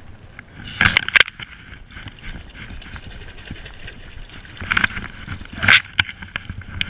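Wind on the microphone, with two sudden bursts of rustling and knocking, about a second in and again around five seconds in, as the caught fish is handled.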